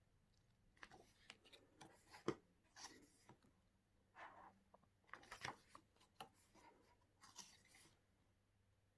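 Faint rustling and soft clicks of photo book pages being turned and handled, with a sharper tap a little over two seconds in.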